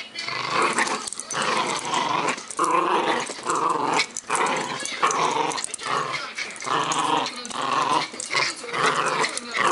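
Shetland Sheepdog puppy growling in a string of short growls, one after another, while tugging on a toy. This is play growling during tug-of-war.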